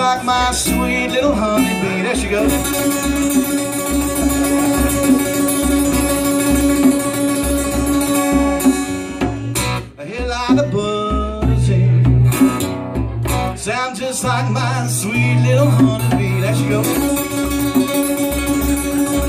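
Live acoustic blues: a steel-string acoustic guitar strummed and picked while a man sings, with a hand drum keeping a steady thumping beat underneath. The sound dips briefly about halfway through, then comes back with low bass notes.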